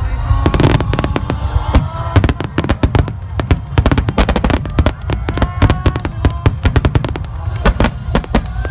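Rapid barrage of aerial firework shells bursting, many sharp bangs a second over a continuous low rumble, with music playing underneath.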